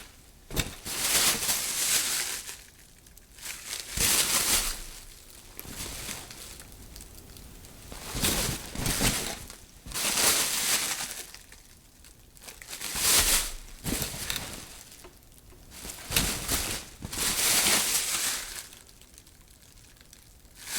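Thin plastic grocery bag being moved and handled, rustling and crinkling in a series of separate bursts, each up to about a second and a half long, with short pauses between.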